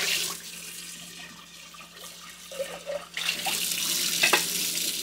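Kitchen faucet running while a stainless steel saucepan is rinsed under it and emptied into the sink. About three seconds in, the stream falls straight onto the bare sink and gets louder and brighter, with a brief knock soon after.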